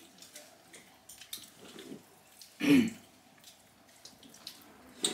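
Quiet eating sounds at a table: faint small clicks and smacks of people eating by hand. About two and a half seconds in comes one brief, loud vocal sound from a diner, falling in pitch, like a throat being cleared.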